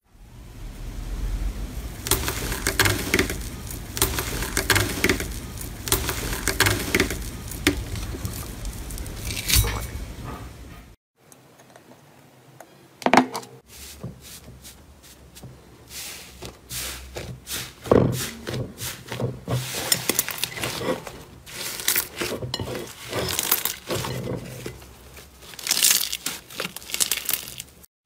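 A sheet of gold foil over slime crinkling and crackling as it is pressed and handled. After a short break, hands press into a blue fluffy slime with scattered soft crackles and pops.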